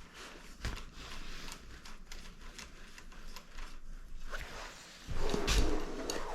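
Metal bicycle parts and hand tools being handled at the crank: scattered light clicks and ticks, then a louder spell of rubbing and scraping about five seconds in.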